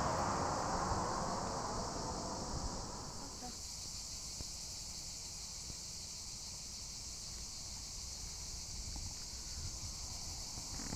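Crickets chirping in a steady, dense high-pitched drone. Under it, a lower noise fills the first three and a half seconds and then cuts off suddenly.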